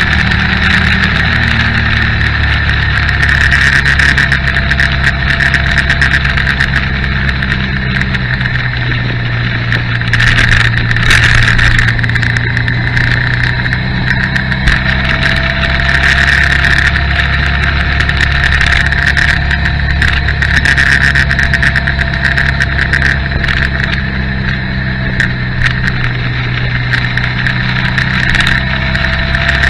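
Motorcycle engine running steadily under way, heard from a camera mounted on the bike, with a constant rush of noise over it.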